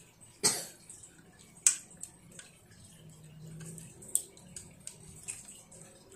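Chopsticks clicking against a plastic plate as a child picks up food: a few sharp clicks, the loudest about half a second in, with smaller taps after, over a faint steady low hum.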